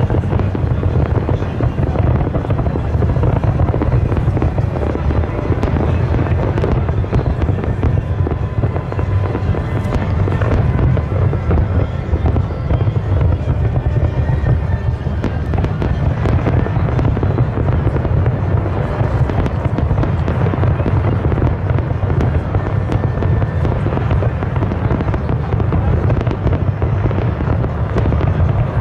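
A fireworks display going off in a dense, continuous barrage. Deep booms run together without a pause, and many sharp cracks and crackles sound through them.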